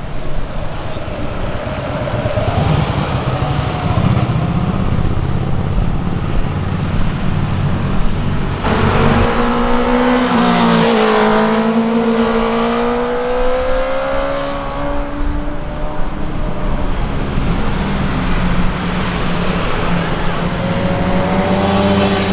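Sport motorcycle engines on a winding road: a low rumble for the first several seconds, then a bike's engine note climbing and falling as it rides past, with another engine note coming in near the end.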